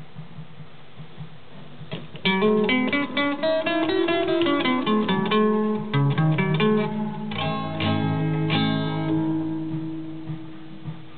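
Guitar played through a 1978 LEM Baby tape echo mixer amplifier. A quick run of single plucked notes starts about two seconds in. Two chords follow about a second apart and ring out, fading near the end.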